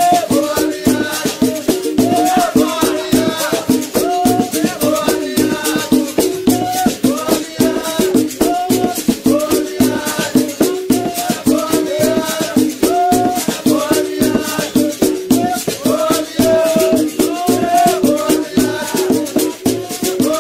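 A capoeira berimbau playing a steady, fast rhythm, its struck wire ringing on notes that step between pitches. A caxixi basket rattle shakes along with the strokes.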